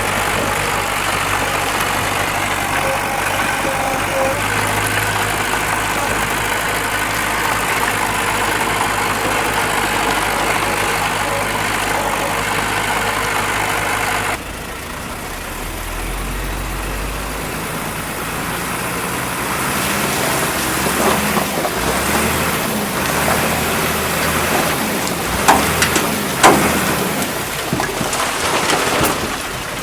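Diesel engine of heavy earthmoving machinery running steadily. About halfway through the sound changes abruptly to another engine working, which grows louder, with a few sharp knocks near the end.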